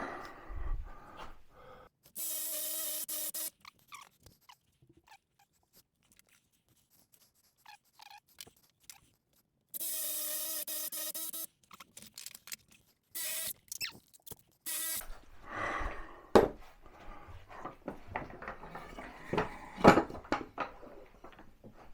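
Power drill run in two short bursts of about a second and a half each with a steady whine, then briefly twice more, followed by knocking and clattering of wood and tools being handled.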